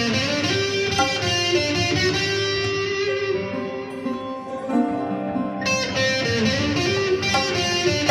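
Electric guitar and sarod playing melodic lines together, live, in a composition in sevens and eights.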